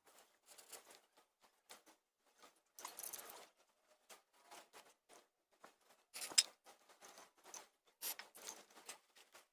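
Faint, irregular scratching and scraping as dirt is cleaned out of the inner drive thread of a motorcycle speedometer, with one sharper click a little past the middle.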